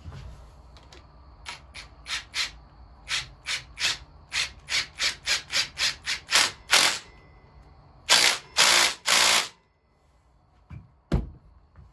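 Cordless impact driver run on a bolt at a dirt bike's front axle: about a dozen short trigger pulses coming faster and faster, then three longer runs as the fastener is driven home, and a single sharp click near the end.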